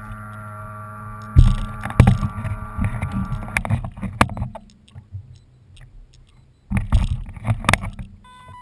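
A modified radio-controlled Atlantic tug model's motor hums steadily, then cuts out about three and a half seconds in. Over it come loud, irregular knocks and rattles in two spells as the model bumps against a fishing boat's hull and is taken in hand. A short electronic beep comes near the end.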